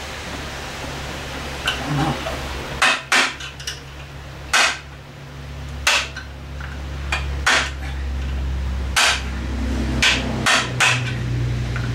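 Hammer blows on the outboard's tilt bracket: about a dozen sharp, irregular strikes, some in quick pairs, over a low steady hum.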